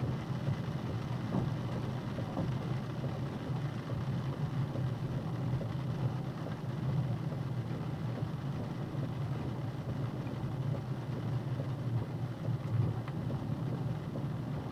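Box truck's engine and road noise heard inside the cab while it drives along, a steady low drone.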